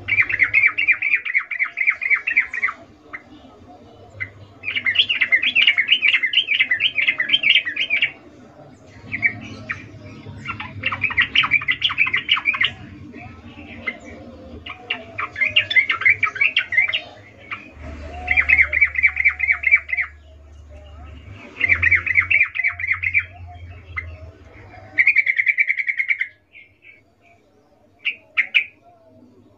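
Yellow-vented bulbul calling in bursts of rapid chattering notes, each burst lasting one to three seconds with short pauses between, shorter bursts near the end. It is a female's breeding-condition call, as the uploader labels it.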